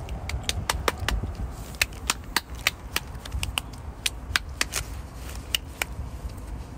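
A child's hands clapping, a long irregular run of sharp claps, over a low rumble of wind on the microphone.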